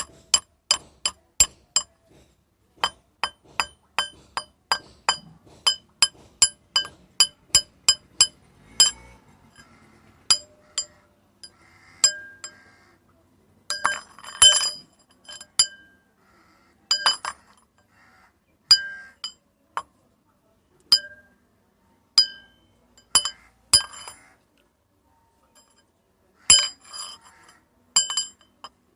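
Metal rods struck and clinking against each other, each strike ringing briefly at the same set of high pitches. The strikes come quickly, about two a second, for the first eight seconds or so, then more sparsely, with a few short clusters of rattling strikes.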